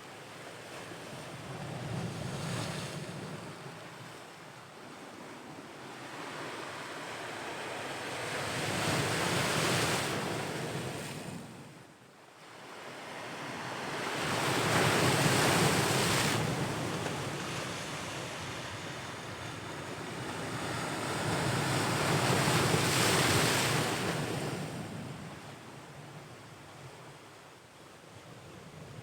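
Ocean waves breaking on the shore and washing back. The sound rises and falls in slow surges every six seconds or so, the loudest about halfway through and again near the end, with a brief lull between them.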